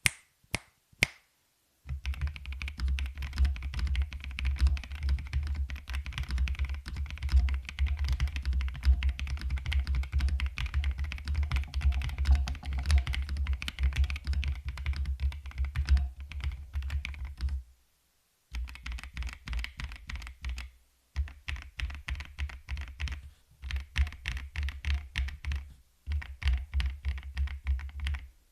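Rapid typing on an Akko x Monsgeek M1 mechanical keyboard with a polycarbonate plate, prelubed Wuque Studio Morandi linear switches and XDA-profile PBT keycaps, with full foam and a tape mod. A few single keystrokes come first, then long fast runs of typing broken by brief pauses.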